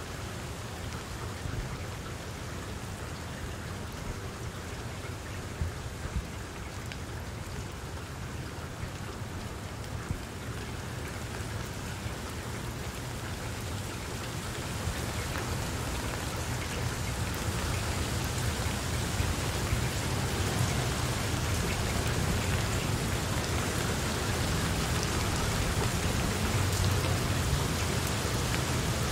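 Steady rain: a dense hiss of many drops over a low rumble, slowly growing louder.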